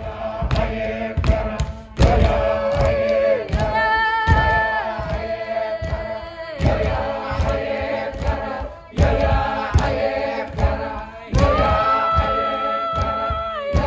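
A choir singing a lament in harmony, mostly a cappella, holding long chords that shift slowly. Regular sharp thumps, about one or two a second, run under the voices. A higher voice enters with a long held note about eleven seconds in.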